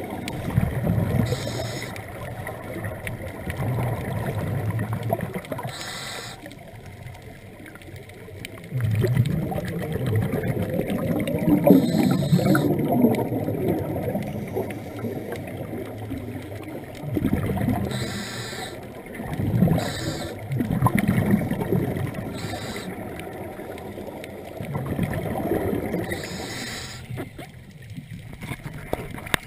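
Scuba regulator breathing heard underwater: a short hiss of inhalation every few seconds, each followed by a long low bubbling rumble of exhaled air.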